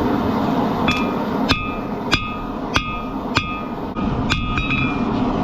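Hammer striking steel, each blow leaving a bright metallic ring: about five evenly spaced blows roughly every half second, then a quicker cluster of lighter taps. A steady low rumble runs underneath.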